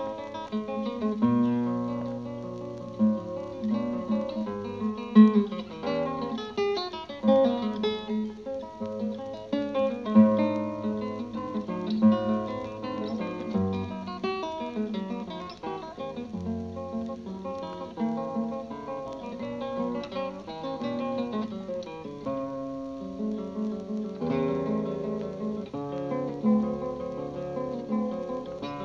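Background music: acoustic guitar playing a lively plucked and strummed piece.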